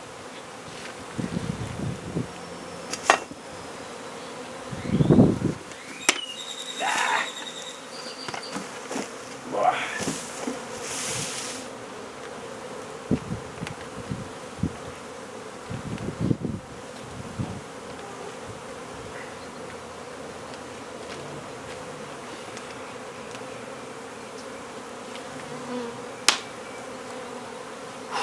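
Honey bees buzzing steadily in large numbers around an opened hive, with scattered knocks and scrapes and a short hiss from the removal work.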